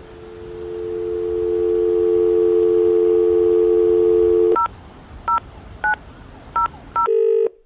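Landline telephone dial tone, a steady two-note hum fading in over the first two seconds, then cut off as five number keys are pressed, each a short two-tone beep. Near the end the ringing tone starts on the line, two short bursts of a ring.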